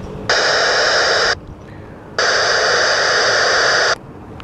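Two loud bursts of static from a radio, the first about a second long and the second nearly two, each switching on and off abruptly: a weak, staticky transmission.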